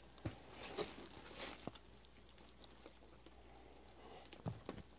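Faint rustling of clear plastic packaging wrap, with a few light knocks and taps. The rustling is loudest in the first second and a half, and there is a couple of knocks near the end.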